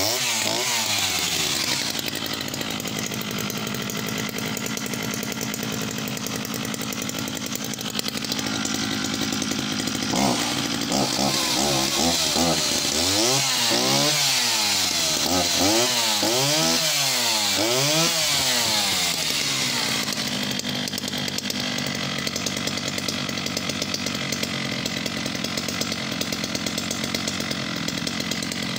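Vintage Sachs-Dolmar 122 two-stroke chainsaw engine running just after starting. It is revved up and down several times in quick succession about halfway through, then settles back to a steady idle.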